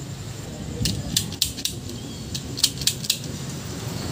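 Light metallic clicks and clinks at irregular intervals, about eight of them, as a greasy tapered roller bearing is turned and worked in the hands while being packed with grease.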